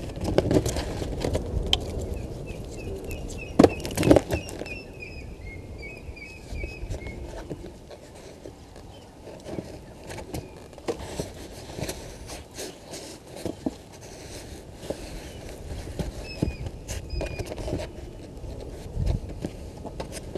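Open bush ambience: a bird calls a quick run of short chirps a couple of seconds in, with a few more later, over a low rumble of wind on the microphone. Two sharp knocks land about four seconds in.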